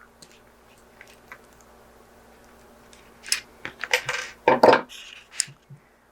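Small metal bracelet parts such as jump rings and a toggle clasp being handled, clinking and clattering. A few faint ticks come first, then a run of clinks and clatter from about three seconds in, loudest around four and a half seconds.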